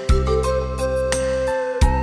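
Instrumental backing music of a trot song, without vocals: held melody notes over a beat, with deep drum hits just after the start and again near the end, and cymbal ticks between.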